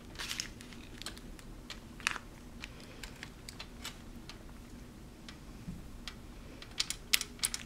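A spatula scraping and tapping melted fudge mixture out of a metal saucepan into a foil-lined pan: irregular light clicks and scrapes, with a cluster of louder taps about seven seconds in.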